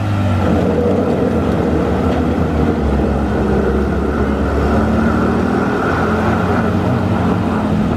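Suzuki Vitara 4x4's engine running steadily under load while its tyres spin in loose dirt and sand, as it climbs a steep bank on the winch line.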